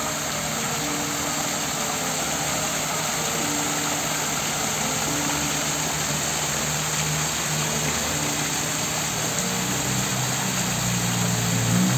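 Steady rain hiss on a city street with vehicle engines running, a low engine sound growing louder near the end.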